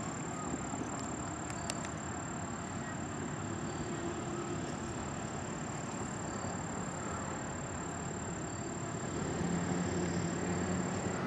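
Steady outdoor road-traffic noise, with a vehicle passing and growing louder about nine seconds in.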